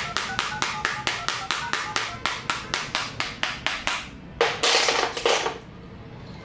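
Redmi Note 10S dial-pad keypad tones beeping from the phone's speaker as digits are tapped in quickly, about four to five presses a second, stopping about four seconds in. A louder rushing noise lasting about a second follows.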